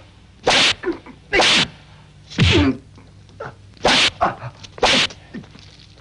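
Film foley of a whip lashing a bare back: five sharp cracks, about one a second.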